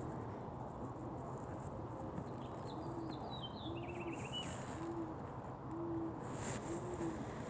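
A bird's low hooting coos, repeated about once a second, five times. A small songbird gives a short, high, twittering song with a falling trill partway through.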